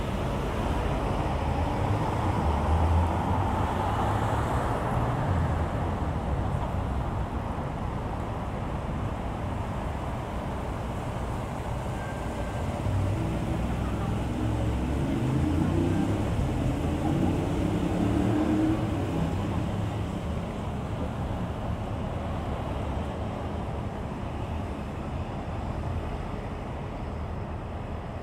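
Street traffic heard from a moving car: steady road and tyre noise with a low engine rumble, and an engine rising in pitch as a vehicle accelerates about halfway through.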